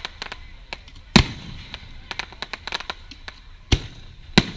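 Fireworks display: three loud booms from aerial shells, one about a second in and two near the end, with many smaller crackling pops between them.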